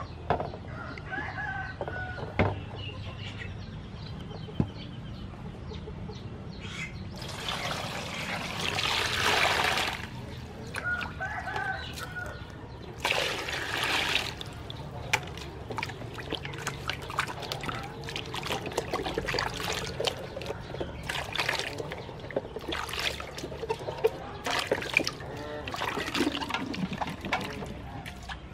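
Water scooped and poured over pumpkins in a metal basin, splashing in two longer pours, with many small knocks and splashes as the pumpkins are washed by hand. Chickens call briefly in the background a couple of times.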